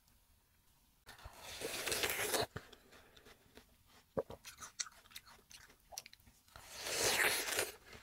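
Bites into a large slice of watermelon: two long bites, about a second in and again near the end, with chewing between them.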